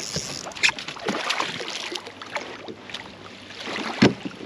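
A hooked walleye splashing at the surface beside a kayak, then a landing net plunging into the water to scoop it, with a sharp splash about four seconds in.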